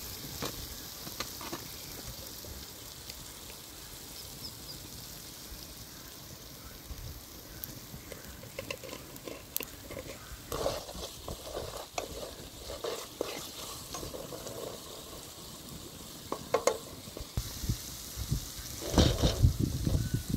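Food sizzling as it fries, with a utensil stirring and scraping in the pan and scattered clinks. There is a run of clattering about halfway through and heavier clatter near the end.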